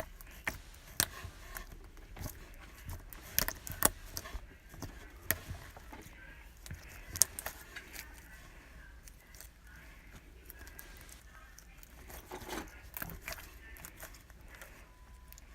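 Crunchy slime being squeezed and pressed by hand, giving sharp, irregular crackles and pops, thickest in the first half.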